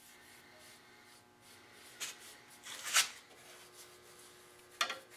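Bristle brush working oil stain over mahogany: a few short brushing strokes at about two, three and five seconds in, the one about three seconds in the loudest.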